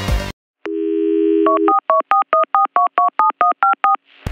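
Telephone dial tone held for about a second, followed by a rapid run of about a dozen touch-tone dialing beeps, a number being keyed in, ending in a brief burst of noise.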